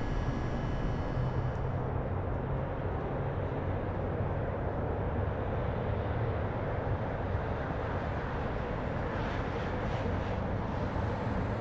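Steady city ambience dominated by the low rumble of vehicles. A faint high whine stops about a second and a half in.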